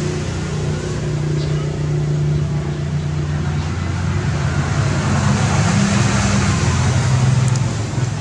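An engine running steadily with a low hum that shifts slightly in pitch, growing louder with a rise in hiss in the second half.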